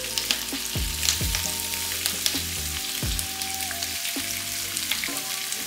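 Paneer, onion, tomato and bell pepper sizzling steadily in hot oil in a kadhai, with a few light knocks.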